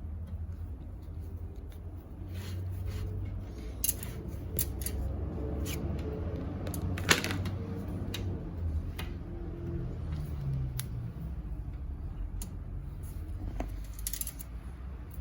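Scattered clicks and light clinks of small parts and hand tools being handled during repair work, over a steady low hum; the sharpest click comes about seven seconds in.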